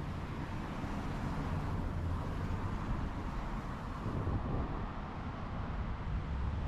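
City street ambience: a steady low traffic hum, with a car passing about four seconds in.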